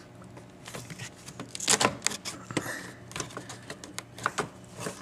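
Irregular small clicks and scrapes of rubber and hard plastic as a rubber seal strip is unclipped and pulled off the plastic windshield cowl trim of a BMW E36.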